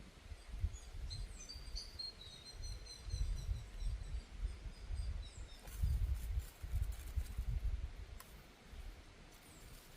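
A small bird chirping a quick run of high notes about a second in, over a low uneven rumble, with a few faint clicks later.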